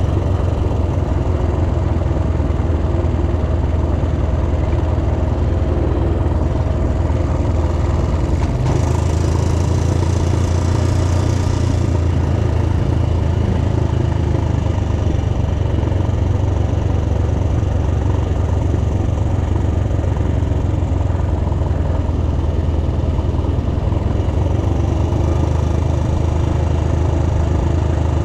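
An ATV engine running steadily, its pitch holding level throughout. A brief higher hiss joins it about nine seconds in.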